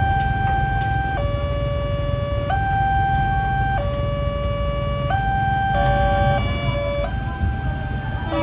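Railway level-crossing warning alarm sounding a steady two-tone, high then low, each tone held about a second and a quarter, signalling that a train is coming. About six seconds in, a second alarm out of step with the first sounds briefly over it, with motorcycle engines idling underneath.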